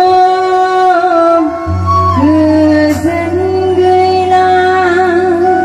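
Live Bodo gospel song: a woman singing over a microphone, accompanied by a side-blown flute, in long held melodic notes. A low steady bass drone comes in a little under two seconds in.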